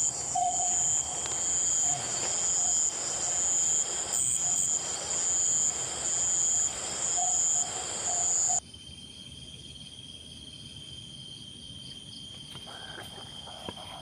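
Night insects chirring: a loud, high-pitched chirr that swells about once a second over a steady thin whine. The loud chirr cuts off suddenly about two-thirds of the way through, leaving the fainter whine.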